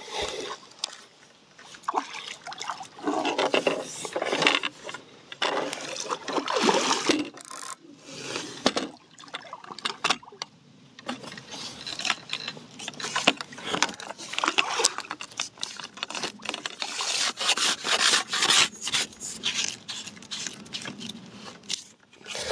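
Close rubbing and scraping in irregular strokes: fishing tackle being handled right against the phone's microphone.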